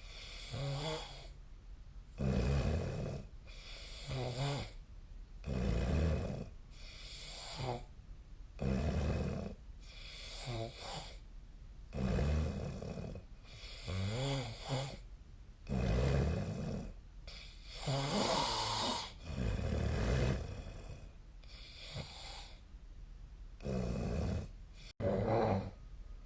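A sleeping person snoring loudly, one rattling snore with each breath about every one and a half to two seconds, some snores carrying a wavering pitched tone.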